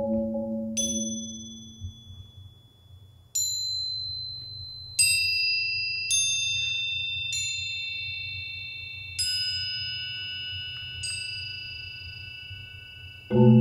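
A marimba chord dies away over the first two seconds. Then single high, bell-like notes are struck one at a time on small tuned metal percussion bars, seven strikes a second or two apart, each ringing on under the next. The marimba comes back in with low notes right at the end.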